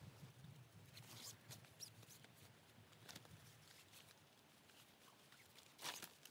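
Near silence: faint rustling and scattered light clicks, with one louder rustle near the end.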